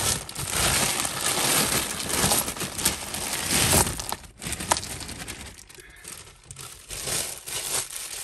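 Plastic bag crinkling and rustling as it is handled, loudest for about the first half, then fainter with a short flurry near the end.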